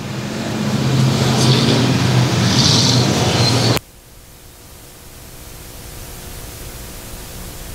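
A pack of short-track stock cars running past on the straightaway, their engines getting louder over the first few seconds, then cutting off abruptly about four seconds in. A fainter, steady engine sound from the pack farther away follows and slowly grows.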